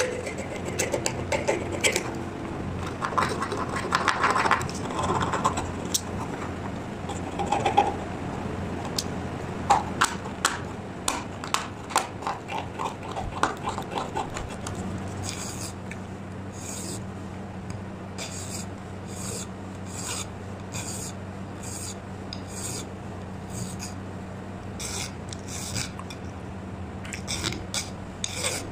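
A utility-knife blade and a hand file scraping a small brass cross. The first half is irregular scratches and clicks. From about halfway, regular rasping strokes come about three every two seconds.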